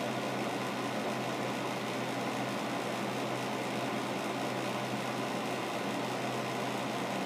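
Steady low hum and hiss of background room noise, unchanging throughout.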